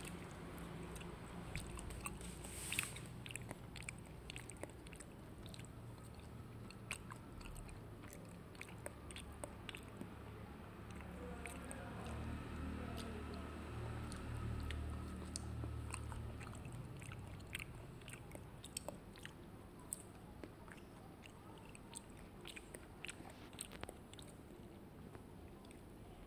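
Faint chewing and small mouth clicks of someone eating kulfi, scattered through, over a low steady hum.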